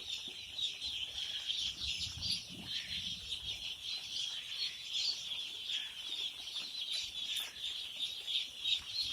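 A large flock of day-old Cobb broiler chicks peeping continuously: a dense, steady, high-pitched chorus of many overlapping cheeps.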